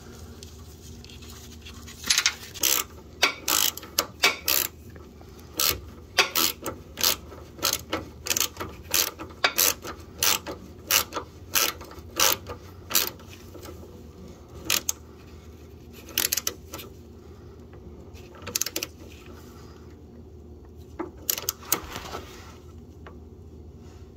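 Hand ratchet with a 5/32 Allen socket clicking in short, uneven runs as it drives a set screw into the lower steering shaft. The clicks start about two seconds in and thin out toward the end as the screw comes tight.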